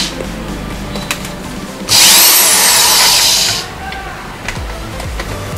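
Cordless drill-driver backing a screw out of a washing machine's plastic control board housing: one run of about a second and a half, starting about two seconds in, its motor whine rising and then falling in pitch.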